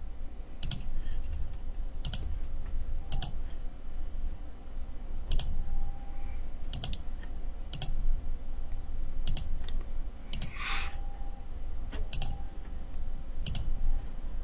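Computer mouse buttons clicking, about ten sharp single clicks, roughly one every second or so, over a steady low hum. About two-thirds of the way through there is a brief rustle.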